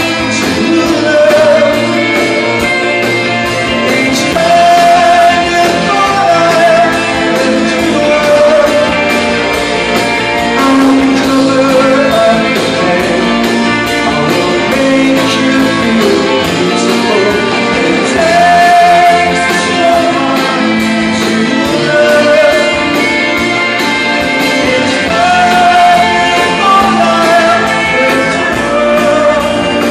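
Live rock band playing loud and steady: a male lead vocalist singing over electric guitar and drums, heard through the hall's echo from within the audience.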